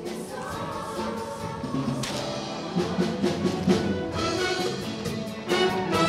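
Show choir music: choir voices over a backing band, with drum hits, getting louder about five and a half seconds in.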